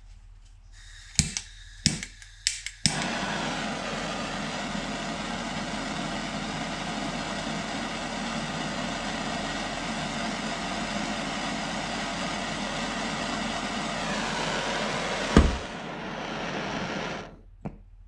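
Handheld gas torch clicking several times at its igniter, then its flame hissing steadily for about fourteen seconds while heating heat-shrink tubing. A sharp click comes about fifteen seconds in, and the flame cuts off shortly before the end.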